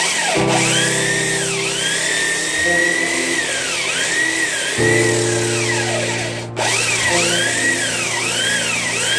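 Power sander running against the wooden axe handle, its high whine dipping and recovering again and again as it is pressed into the wood. The sound changes abruptly a few times at edits.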